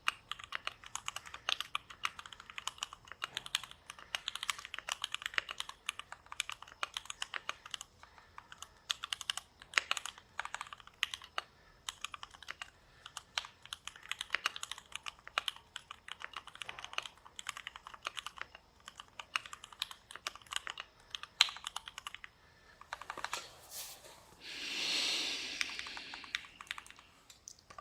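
Typing on a Keychron Q1 aluminium mechanical keyboard fitted with Dark Olivia clone double-shot keycaps: fast, irregular keystrokes as a sound test. The typing thins out near the end, where a hissing swell of noise lasts about three seconds.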